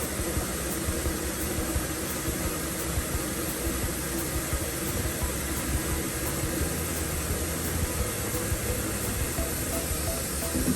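Steady machine noise: an even hiss over a low rumble with a faint hum, unbroken throughout.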